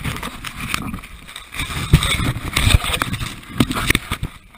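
Irregular knocks and rustling from a body-worn action camera being jostled and rubbed against clothing as the wearer moves.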